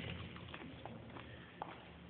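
Faint room tone in a hall with a few soft clicks and light knocks.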